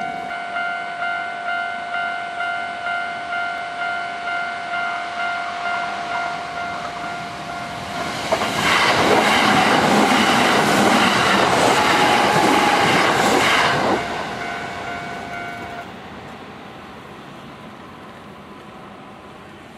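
Japanese level-crossing warning bell ringing its steady two-beats-a-second 'kan-kan'. About eight seconds in, a Kintetsu Osaka Line electric train passes loudly for about six seconds, its wheels clattering over the rail joints. The bell stops about sixteen seconds in.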